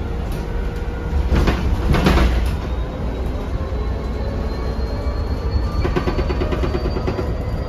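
Interior of a moving city bus: steady low engine and road rumble. Two knocks or rattles come about a second and a half and two seconds in, and a quick run of rattling clicks near the end.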